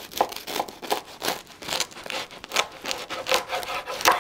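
A knife sawing back and forth through the hard, crispy toasted crust of a pressed Cuban sandwich on a wooden cutting board. It makes rasping strokes about three a second, and the loudest one comes near the end.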